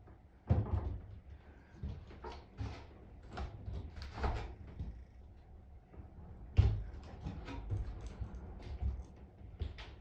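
Irregular knocks and thumps, with two louder bangs about half a second in and just before seven seconds in.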